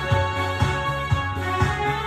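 Yamaha PSR-SX900 arranger keyboard played live: held melody notes over a steady drum and bass beat, about two beats a second.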